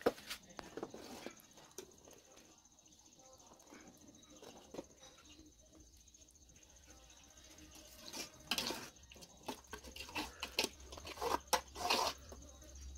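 A metal ladle stirring a boiling pot of fish curry sauce, scraping and clinking against the aluminium pot, with a busier run of knocks in the second half. A steady high insect trill runs underneath.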